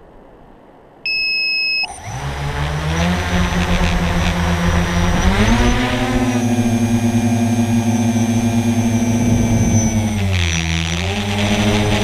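A short electronic beep about a second in, then the three brushless motors of a Fortis Titan tricopter (SunnySky 1400kv with 9x4.5 props) spin up. The pitch climbs as it lifts off, holds steady in flight, dips briefly near the end and climbs back.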